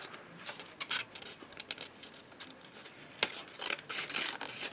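Paper being handled in close-up: soft, scattered rustles and light clicks, with a sharp click about three seconds in followed by a short run of rustling.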